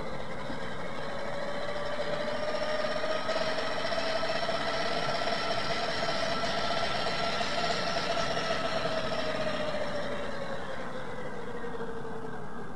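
Sanyo Denki San Ace 80 DC cooling fan running on a transistor circuit, a whine with a rush of air. Its pitch rises over the first few seconds as the fan speeds up, holds, then falls again near the end as it slows.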